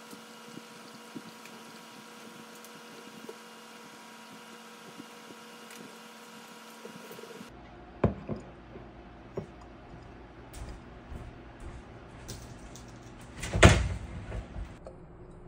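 A ceramic mug handled on a marble countertop: a sharp knock about eight seconds in, a few light clicks, then a louder clunk as it is set down near the end. Before that, only a faint steady hum.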